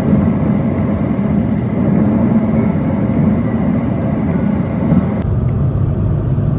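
SUV driving at highway speed, heard from inside: a steady drone of road and engine noise. About five seconds in the sound turns lower and duller.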